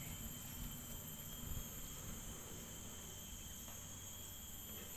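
Steady, high-pitched chirring of insects, with a faint low rumble underneath.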